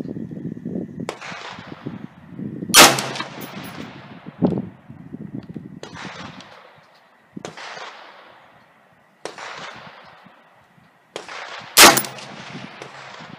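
Two loud rifle shots about nine seconds apart from a 6x45 (6mm-223) AR-15 with a 20-inch barrel, firing the top 21-grain Accurate 2200 load of a ladder test. Several fainter gunshot-like reports come in between.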